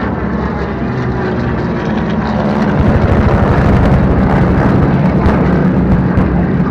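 Radial-engine propeller warplanes flying a low pass, with a steady, loud engine drone. The drone swells about two and a half seconds in and stays loud.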